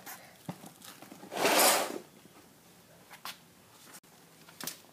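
Steel tape measure blade being pulled out of its case: one brief zipping rasp about a second and a half in, with a few light clicks and knocks of handling around it.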